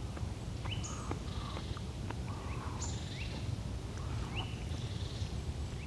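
Birds calling in woodland: short calls that sweep sharply up in pitch, repeated every second or so, over a steady low rumble.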